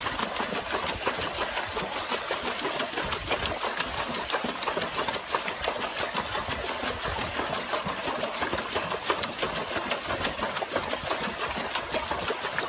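Water splashing and churning continuously as a dog paws rapidly at the water in a plastic paddling pool.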